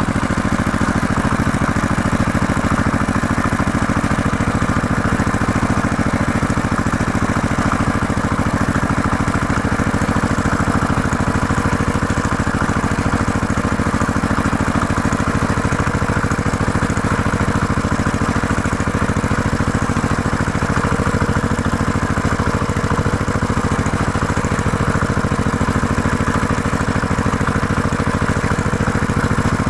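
Farm tractor engine idling steadily, a low, even running note with no change in speed.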